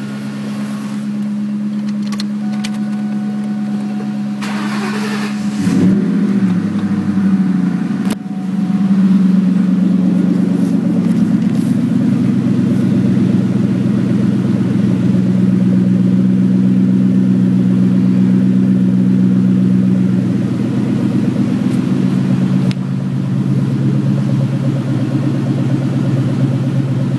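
Supercharged 4.6-litre V8s of two 2003 Ford Mustang Cobras: one idles steadily, and about six seconds in the second is cranked and catches. The two then idle together, louder, and the sound eases down near the end as the newly started engine's fast cold idle settles.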